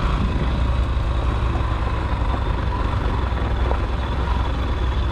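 Yamaha motorcycle engine running steadily at low speed as the bike rolls along.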